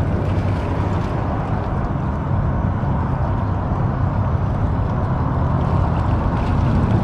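A steady low engine drone, growing slowly louder.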